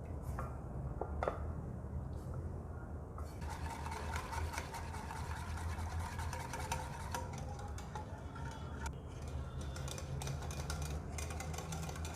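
A utensil stirring white sauce (butter, flour and milk) in a pan, with quick small scrapes and taps that thicken from about three seconds in, over a steady low hum.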